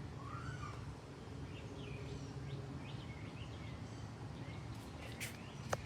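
Birds chirping now and then over a steady low background hum, with a couple of sharp clicks near the end.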